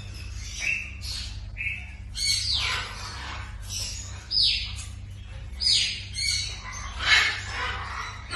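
Parrots squawking: a run of harsh, shrill calls about once a second, several of them sliding sharply down in pitch.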